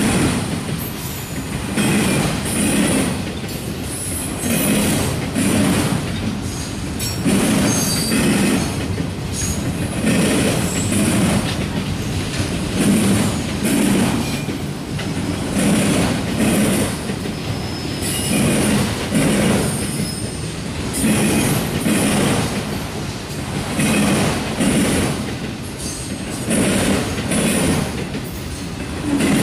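Wheels of passing autorack freight cars rolling on the rails, with a rhythmic clatter that rises and falls every second or two as each set of wheels goes by. There are a few brief high-pitched wheel squeals.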